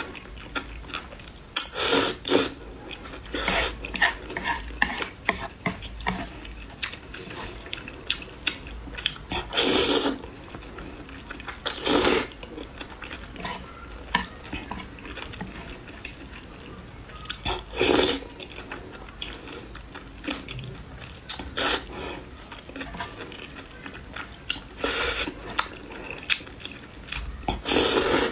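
A person slurping noodles out of broth: about six loud, short slurps spread through, with wet chewing and mouth smacks between them.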